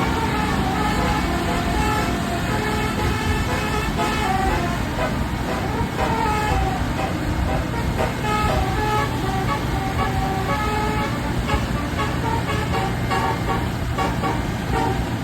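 Bus telolet basuri horn playing a melody: a run of short horn notes at changing pitches, over the low steady running of the bus engine.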